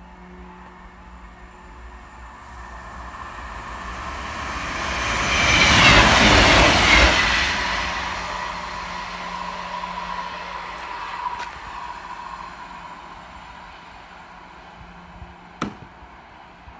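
Class 158 diesel multiple unit approaching and passing on the track, building to its loudest about six seconds in, then fading away. A sharp click comes near the end.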